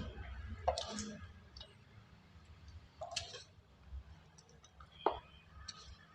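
Soft black gym chalk crunching and crumbling as it is crushed, in about four short, crackly crunches a second or two apart.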